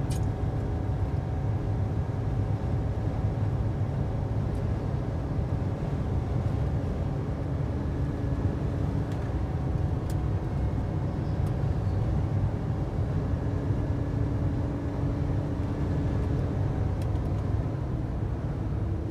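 Car cabin noise while driving: a steady low rumble of engine and tyres on the road, with a faint even hum over it.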